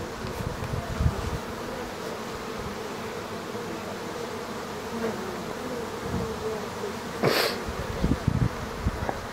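Honey bees buzzing: a steady drone with single bees' wavering hums passing close by. A short rush of noise comes about seven seconds in, followed by a few low bumps.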